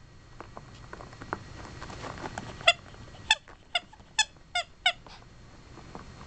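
Six short, high-pitched squeaks in quick succession, about two a second, from a ferret and a small papillon dog in rough play, after a few faint taps of scuffling.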